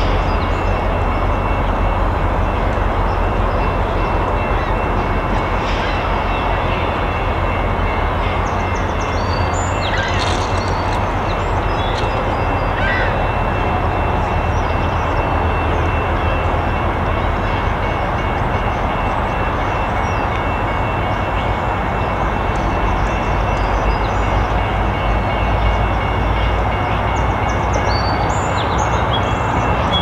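VIA Rail F40PH-2 diesel locomotives and passenger train departing, a steady low engine drone mixed with the running noise of the train on the rails.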